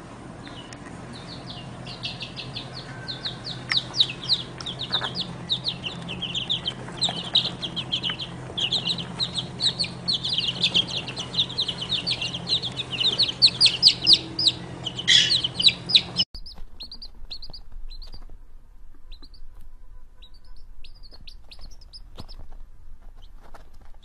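A brood of baby chicks peeping: many short, falling chirps overlapping rapidly over a low steady hum. About sixteen seconds in the sound cuts off sharply, and the peeping goes on fainter and sparser.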